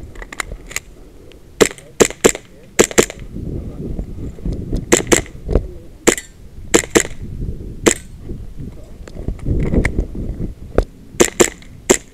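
Custom-built Tokio Marui Hi-Capa 5.1 gas blowback airsoft pistol firing: sharp cracks of the shot and slide cycling, mostly in quick pairs and short strings. There are more than a dozen shots with pauses in between, and a fast string of five near the end.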